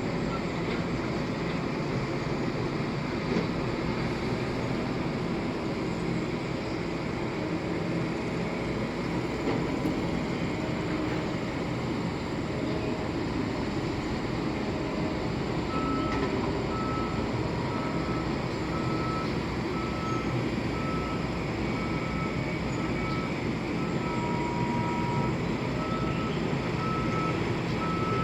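Heavy construction machine's diesel engine running steadily. About halfway through, a reversing alarm starts beeping at an even pace, the sign that the machine is backing up.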